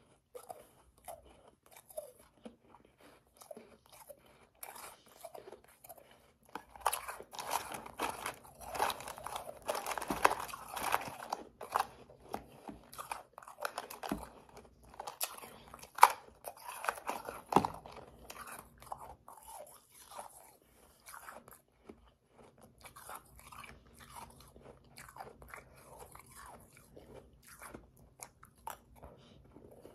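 Close-up crunching and chewing of powdery, slushy ice: irregular wet crackles, sparse at first, busiest through the middle with one sharp loud crunch about halfway through, then thinning out.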